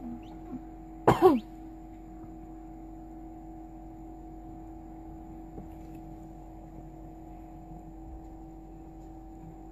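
Steady hum of an egg incubator, with a person's short throat-clearing sound about a second in.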